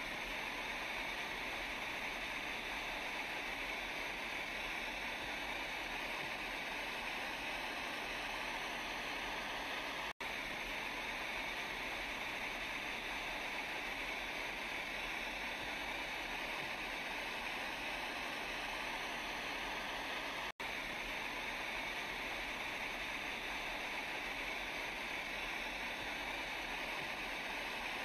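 Steady rush of flowing floodwater, a looped water sound effect for the tsunami simulation. It cuts out for an instant about ten seconds in and again about twenty seconds in, where the loop restarts.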